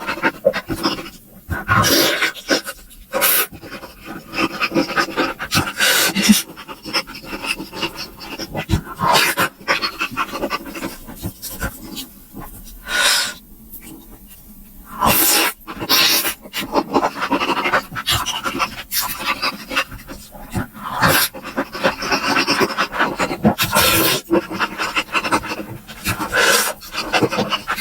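Close-miked eating sounds: chewing and wet lip-smacking of someone eating steamed momos, with breathy mouth noises between bites, in irregular quick clicks and smacks.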